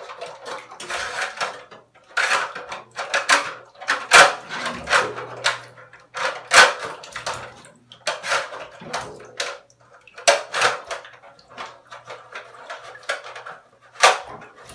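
Wire coat-hanger hook with steel wool being fed and scraped through the loop of a Dyson AM06 fan: a run of irregular scraping and clattering strokes, with one sharp knock near the end.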